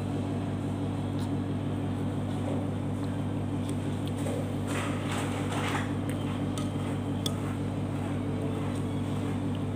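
A steady low hum runs throughout, with a few light clinks of a fork and spoon against a ceramic plate and two short noisy eating sounds a little after the middle.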